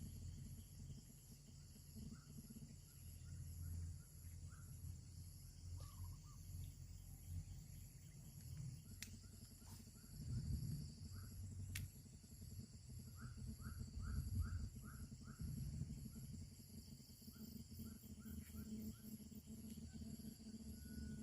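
Outdoor ambience of insects chirping in a steady high-pitched drone, with runs of short repeated chirps, a quick series of four or five about two thirds of the way through, over a low rumble.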